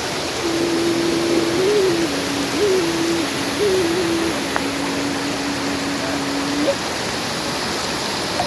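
Steady rushing noise like running water, with a soft, low, pure tone held through a slow few-note melody that steps up and down in pitch for about six seconds and stops near the end.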